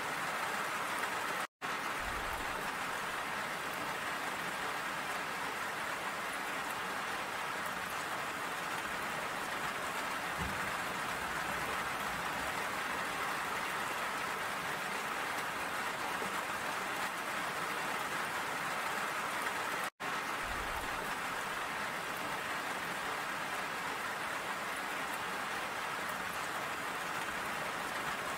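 Steady, even rain falling, with a few faint low thuds. The sound drops out completely for an instant twice, once shortly after the start and once around two-thirds of the way through.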